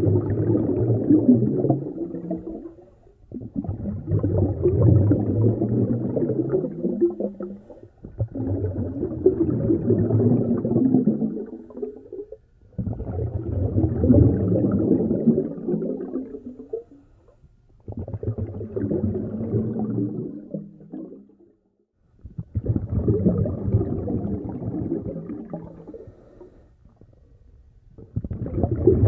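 A snorkeller's breathing through the snorkel, heard muffled with the camera underwater: a long gurgling, rumbling breath about every four to five seconds, each starting sharply and fading, with short pauses between.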